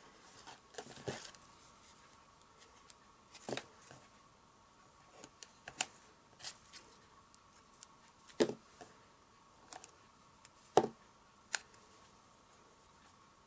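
Scattered small clicks and taps of card-making pieces and adhesive backing being handled and pressed down, over a faint steady hum.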